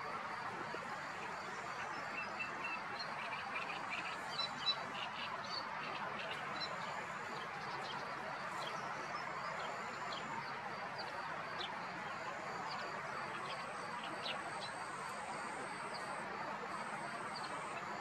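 Birds giving short chirps and calls over a steady background hiss, with faint repeated high-pitched tones.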